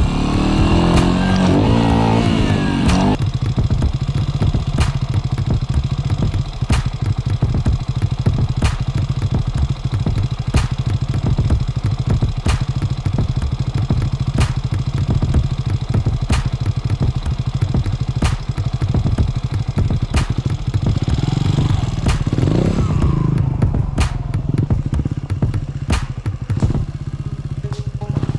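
Trials motorcycle's small single-cylinder engine running, revved in quick rising and falling blips in the first few seconds and again about three quarters of the way through, otherwise holding a steady low note.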